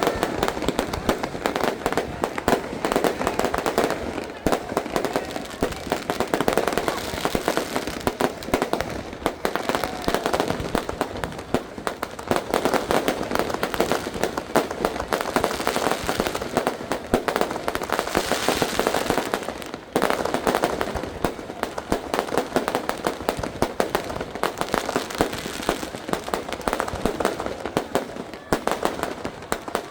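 Fireworks and firecrackers going off in a rapid, almost unbroken string of cracks and bangs, with a brief lull about two-thirds of the way through.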